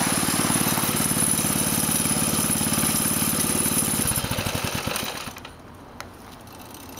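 Mini bike's 6.5 hp GX200-clone single-cylinder four-stroke engine idling steadily, then shut off about four seconds in, its firing beats slowing and dying away over a second or so.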